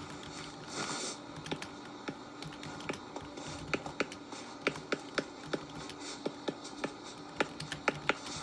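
Stylus tip tapping and scratching on a tablet's glass screen as letters are written over by hand, giving a string of irregular sharp clicks, about two or three a second.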